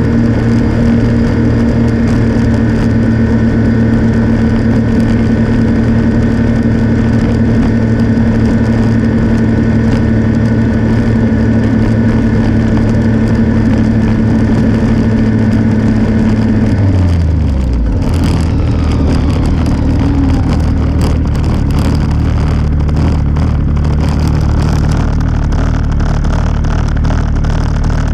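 A motor vehicle's engine running steadily at road speed, then dropping sharply in pitch a little past halfway as the vehicle slows, settling to a lower, near-idle note for the rest.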